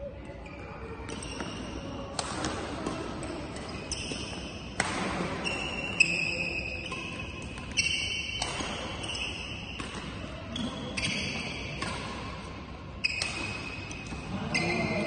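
A badminton rally: sharp racket strikes on a shuttlecock about every one to two seconds, with high squeaks of players' shoes on the court floor between the shots.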